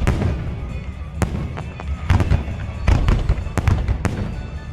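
Fireworks display going off: a quick series of sharp bangs, several in close succession, over a continuous low rumble.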